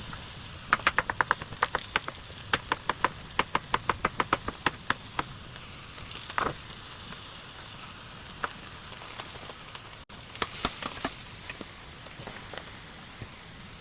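Food sizzling in a pan as a steady hiss, broken by quick runs of sharp kitchen knocks in the first five seconds and again about ten seconds in.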